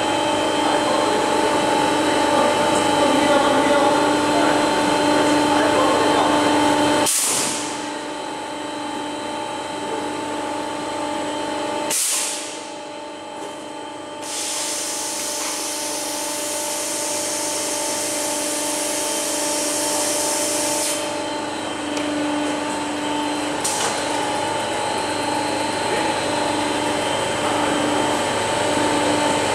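Laminating line machinery running, a steady motor hum and whine with several constant tones. A high hiss joins in about halfway through and lasts several seconds, and a few sharp clicks come at intervals.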